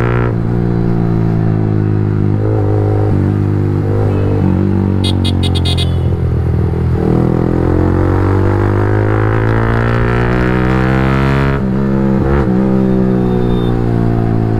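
Yamaha R15 V3's single-cylinder engine running loudly through an aftermarket Akrapovic exhaust while the bike is ridden, its pitch falling and rising several times with throttle and gear changes, with a brief drop about twelve seconds in.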